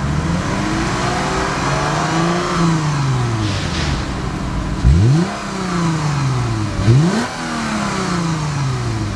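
2013 Lexus GS350 F-Sport's 3.5-litre V6 being revved through its tuned dual exhaust: one slow rev that rises and falls back, then two quick, sharp blips about two seconds apart, each sinking slowly back toward idle.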